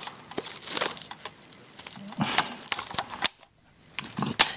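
Crinkling and rustling of cassette magnetic tape, wound into the recorder's drive mechanism, as it is picked and pulled free, with many sharp clicks. There is a brief quiet gap about three and a half seconds in, then a loud click.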